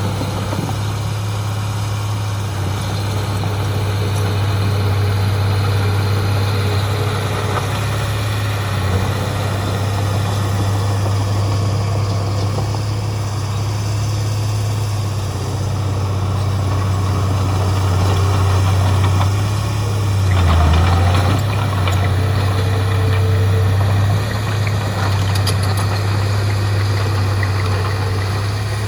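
Heavy diesel engine of earthmoving machinery running steadily with a deep, continuous hum, swelling briefly about two-thirds of the way through.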